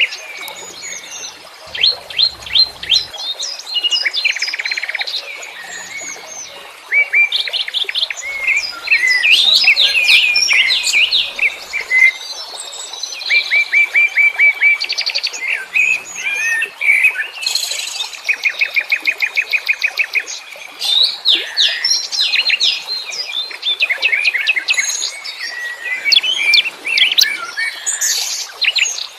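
Wild songbirds chirping and singing, many varied calls overlapping: fast trills, quick runs of repeated high notes and short whistled phrases, without a break.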